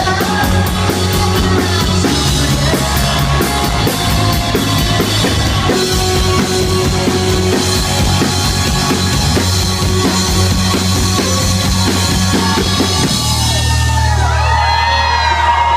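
Live rock band playing loud with a full drum kit. About 13 seconds in, the drums drop out and a low chord is held ringing while the audience whoops.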